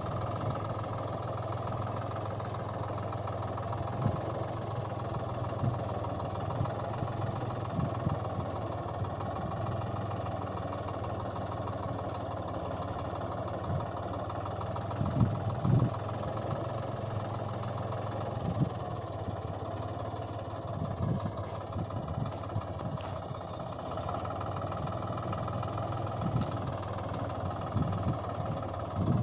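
Tractor engine running steadily at an even speed, with a few short low thumps, the strongest about halfway through.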